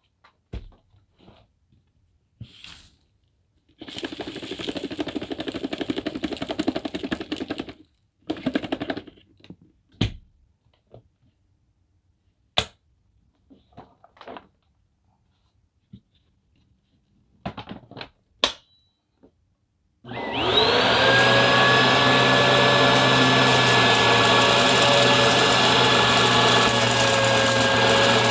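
Scattered clicks and handling noises, then about two-thirds of the way through an upright vacuum cleaner is switched on: its motor whine rises quickly to speed and then runs steadily.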